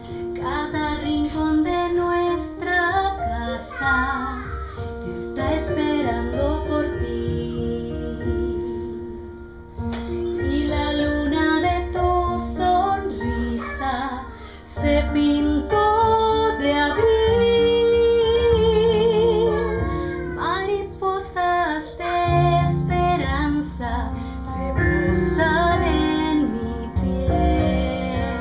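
Music: a woman singing a melodic song over instrumental accompaniment, with long held notes that waver in vibrato.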